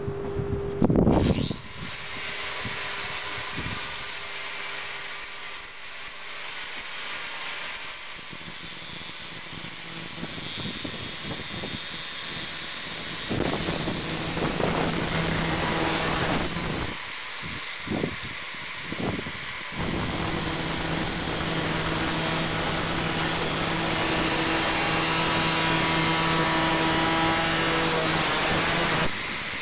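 Corded angle grinder with a thin cutting disc starting up and cutting through a thick steel chain, a steady motor whine under loud grinding noise from the disc in the metal. The cut eases off briefly about two-thirds through, then bites again, and the grinder stops near the end.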